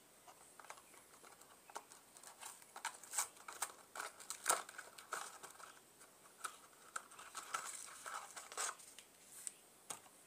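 A small cardboard box and paper packets being handled and opened: crinkling and rustling with many short, sharp clicks.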